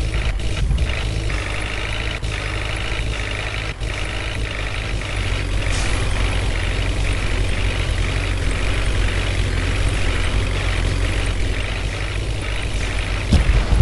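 Heavy diesel engine running steadily under a loud low hum, from a backhoe loader or heavy truck. A louder, deeper rumble comes in near the end.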